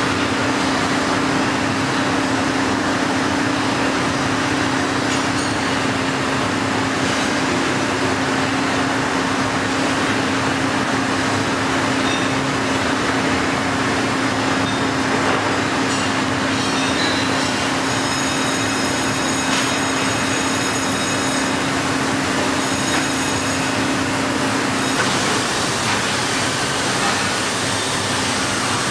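Heller CNC four-roll hydraulic plate bending roll running as its rolls turn and bend a steel plate: a steady mechanical noise with a low hum, which drops out near the end.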